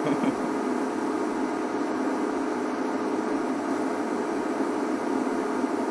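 Steady machine hum under an even hiss, unchanging in level.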